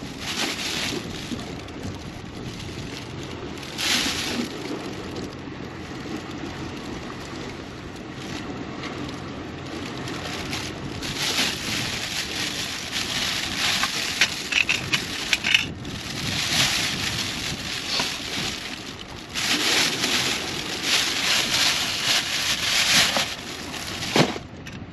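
Gusty sea wind buffeting the microphone over surf, rising and falling in several strong gusts with crackling.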